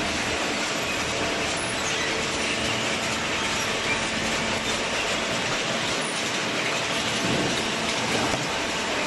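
Large hydraulic cardboard baler running, a steady, dense mechanical noise with no pauses.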